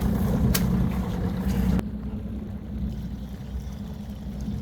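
Fishing boat's engine running with a steady low hum, with a single knock about half a second in. The sound drops abruptly in level just under two seconds in.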